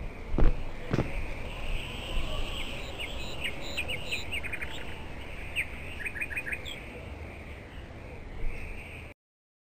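Two heavy footsteps in the first second, then birds chirping in short, quick calls over a steady outdoor ambience. The sound cuts off suddenly shortly before the end.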